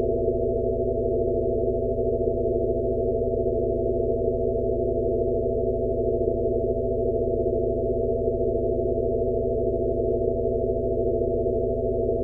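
Steady synthesized drone of several layered low and mid tones with a hum underneath and nothing high-pitched. A faint pulse comes about every second and a quarter. It is a sound-therapy tone track sold as a Rife frequency for tinnitus relief.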